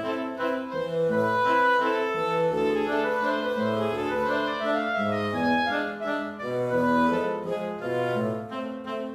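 Background music: a light instrumental tune with clarinet-like woodwind melody over piano and bass.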